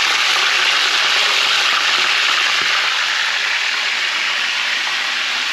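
Whole tilapia deep-frying in a pan of hot oil: a steady, loud sizzle that eases slightly in the second half.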